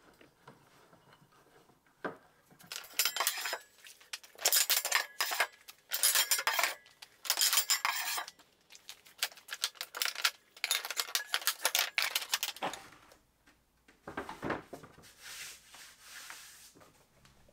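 Metal bar clamps clinking and rattling in repeated bursts as their parts are slid and locked onto a panel glue-up, with a short scraping hiss near the end.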